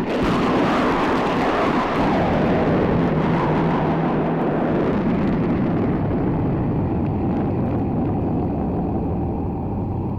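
A rumble of thunder: a long rolling crash that stays loud for several seconds, then slowly dies away near the end.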